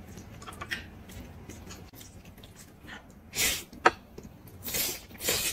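A person slurping noodles: three loud, noisy slurps in the second half, with one sharp click between the first two.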